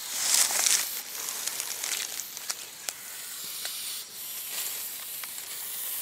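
Black Nikolsky's viper hissing in its defensive coil: a loud hiss in the first second, then softer hissing, with scattered small clicks of rustling grass and stalks.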